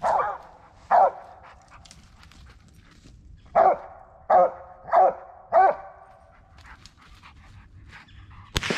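Original Mountain Cur barking treed at the foot of a tree: six loud barks, two close together and then four in quick succession, the tree bark of a squirrel dog that has a squirrel up the trunk. Near the end comes a single sharp crack with a fading echo.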